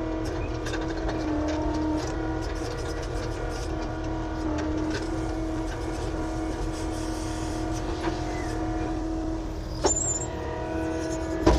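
Engine of an earthmoving machine running steadily at a constant speed. There is a short high squeak with a knock about ten seconds in, and a sharper, louder knock near the end.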